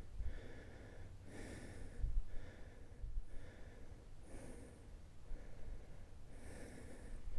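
A hiker breathing hard and evenly on a steep uphill climb, with a puff of breath about every second, and a few low thumps in between.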